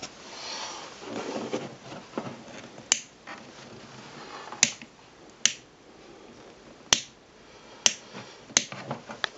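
A desk lamp's switch clicking on and off repeatedly: about seven sharp, separate clicks roughly a second apart, after a couple of seconds of soft handling rustle.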